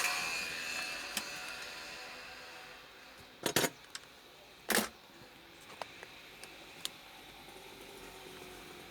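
Handling noise on a repair bench: scattered small clicks and two sharper knocks, about three and a half and five seconds in, as tools and the TV's parts are moved about.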